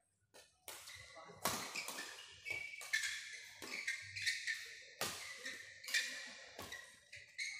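Badminton rackets striking the shuttlecock in a fast doubles rally: a run of sharp hits, roughly one every 0.7 seconds, each ringing briefly in the hall.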